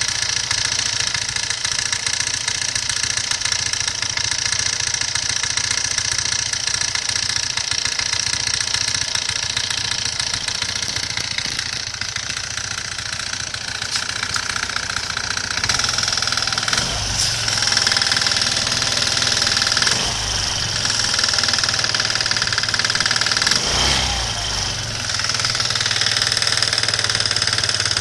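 Engine of a 2007 carbureted Suzuki GSR125 running, with an abnormal mechanical noise over it that the owner is trying to track down. The engine speed rises briefly a few times in the second half.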